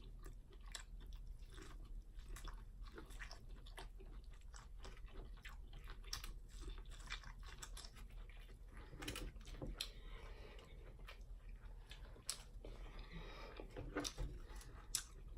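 A person chewing seafood close to the microphone: a steady run of quick wet smacks and clicks of the mouth, with a few brief slurping sounds.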